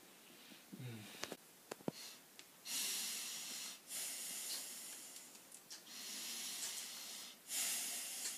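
A person breathing deeply and slowly, as if asleep, close to the microphone: four long breaths of one to two seconds each, starting about three seconds in. Before them come a few soft clicks and a short low creak.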